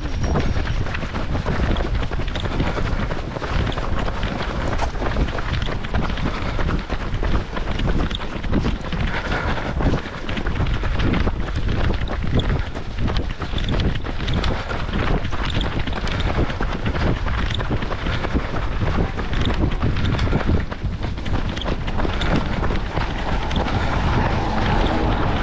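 Wind buffeting the microphone of a runner's body-worn action camera during a race, over the steady irregular thuds of footfalls on wet asphalt.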